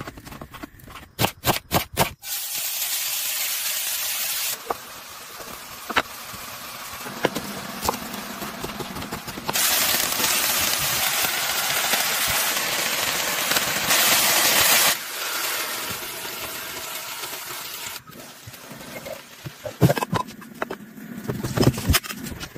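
Steady hissing spray in several stretches that start and stop abruptly, the loudest in the middle, with a quick run of clicks at the start and scattered knocks near the end.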